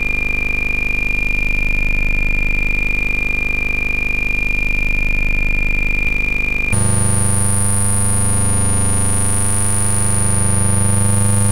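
Oscilloscope-music signal from a Eurorack modular synthesizer, the same audio that draws the 3D mushroom shapes on the oscilloscope in X-Y mode. It is a steady, buzzing electronic drone with a thin high whine, with no beat. About seven seconds in it changes abruptly to a deeper buzz with a higher, piercing whine as a second mushroom is added to the drawing.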